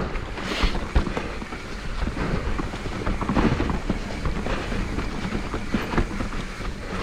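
Mountain bike descending a rough downhill trail: tyre noise on dirt with a continuous clatter of knocks and rattles from the bike, and wind on the helmet-camera microphone.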